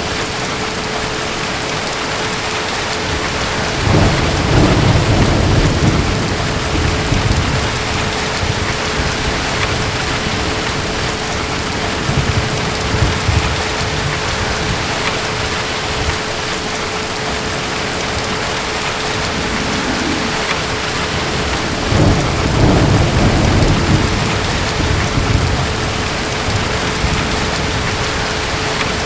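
Steady heavy rain with distant thunder rolling twice: a low rumble about four seconds in and another about twenty-two seconds in, each lasting a few seconds.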